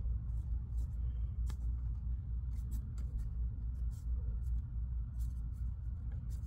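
A steady low rumble, with faint scattered clicks and taps as black ABS drain pipe and fittings are handled and held in place against a wooden stud.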